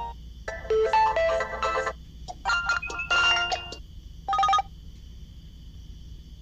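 Ringtone melodies played through a Realme smartphone's speaker, one short phrase then several brief snippets that start and cut off abruptly, as ringtones are previewed one after another. They stop about four and a half seconds in, leaving a faint steady high-pitched whine.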